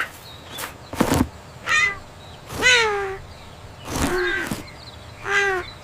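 A kitten mewing four times, short high cries that slide down in pitch, with a few sharp knocks and rustles between them.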